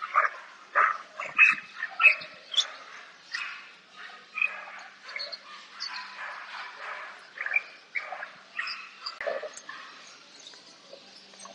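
Small dogs or puppies yapping and yipping: many short, high barks, irregularly spaced, roughly one or two a second.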